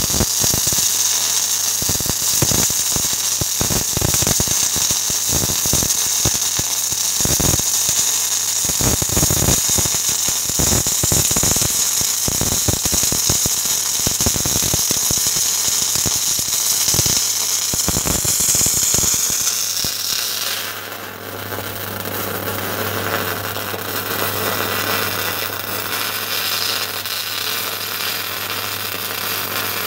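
MIG/MAG welding arc from a Migomat 3000T welder, crackling and spitting steadily as a bead is run along a steel seam. About twenty seconds in the crackle dips briefly and turns into a smoother, more even hiss, over a steady low hum.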